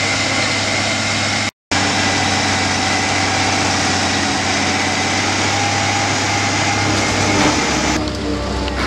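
Engines of an Inter Drain chain trencher and a John Deere tractor running steadily together as the trencher cuts a field drainage trench. The sound drops out completely for a moment about one and a half seconds in.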